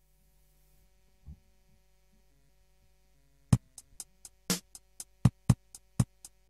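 Intro of a hip-hop track: quiet sustained synth tones, then from about halfway in, sharp drum-machine hits at about four a second, some accented much louder than others.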